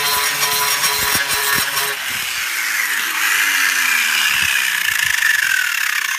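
Grinder grinding metal staples flush in an ABS plastic bumper, a rough grating with scattered clicks. About two seconds in the grinding stops and the motor winds down with a slowly falling whine.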